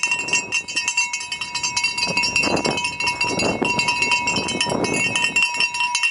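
A handheld cowbell clanking rapidly and without pause, many strikes a second, its ringing tone held throughout.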